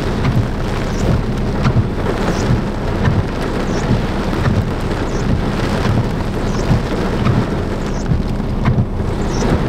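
Heavy rain from a summer thunderstorm downpour, falling steadily, with irregular low knocks of raindrops striking the recording phone.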